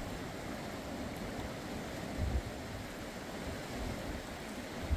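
Fast mountain river rushing steadily over rocks and shallows. Brief low thumps of wind on the microphone come about two seconds in and again at the end.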